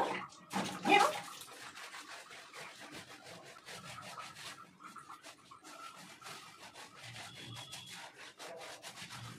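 Hands scrubbing shampoo lather into a wet dog's coat: a steady soft wet rubbing, with one short louder sound about a second in.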